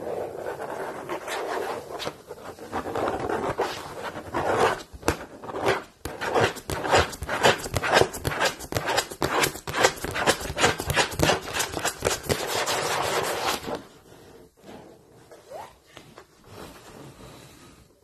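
Long fingernails scratching hard across a blackboard, breaking into a quick run of sharp strokes at about four a second. The sound drops to faint scratching near the end.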